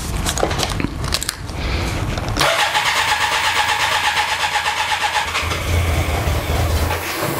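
A few clicks and knocks, then about two and a half seconds in the BMW K100's electric starter cranks its four-cylinder engine for about five seconds with an even rapid pulsing, stopping abruptly. The freshly refitted fuel system is not yet primed, so the engine does not start.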